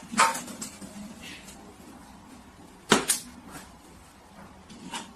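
A few short knocks over quiet room noise, the loudest a double knock about three seconds in.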